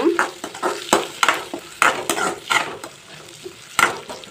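Metal spoon scraping round a metal kadai, stirring shallots, green chillies and curry leaves as they fry in hot oil. The strokes repeat about three times a second over a steady sizzle, with a short pause near the end.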